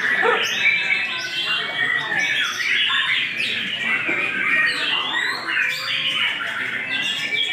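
Songbirds singing without pause: a dense stream of quick chirps, trills and short whistled glides.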